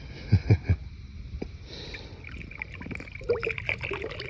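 Three quick dull thumps about half a second in, then river water splashing and trickling as something is handled at the waterline.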